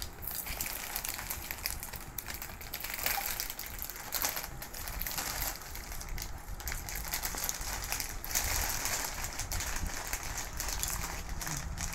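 Plastic potato-chip bags crinkling as hands rummage in them and tear one open, mixed with the crunching of chips being eaten, a continuous run of crackles.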